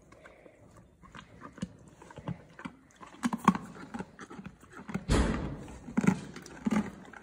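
Horse chewing a hard iced cookie treat: irregular loud crunches and smaller cracks as its teeth break it up, the sharpest about three and a half seconds in. A short rushing noise comes about five seconds in.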